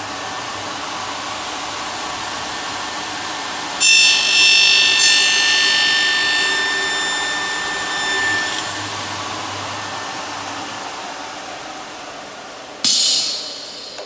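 Elumatec AF 222 end milling machine's motor and cutter running steadily, then the cutter milling the end of a window profile for about four seconds with a loud, high-pitched ringing screech before it drops back to spinning free. A short, loud hiss about a second long comes near the end.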